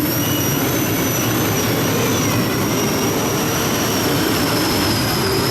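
Triple-turbine modified pulling tractor running flat out, a loud roar with a high turbine whine held steady.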